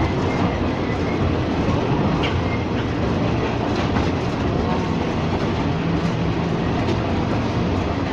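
Ex-JR 203 series electric multiple unit running along the track: a steady rumble of wheels on rail, with a few faint clicks.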